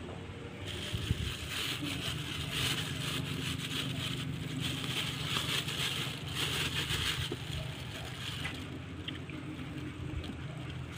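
A thin plastic bag rustling and crinkling as hands open it and handle the bait inside, dying down about three-quarters of the way through, over a low steady hum.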